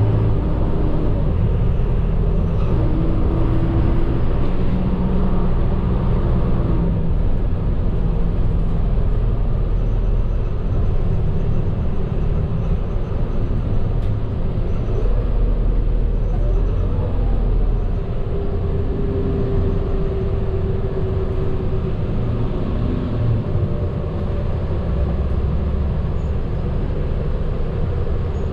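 Medium bus engine and road noise heard from inside the cabin while driving, a steady low drone whose engine tones shift up and down as it changes speed.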